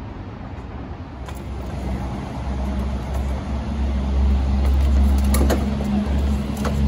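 Fire engine's diesel engine running at idle, a steady low drone that grows louder about two seconds in. A few light knocks about five seconds in come from hose being pulled off the hose bed.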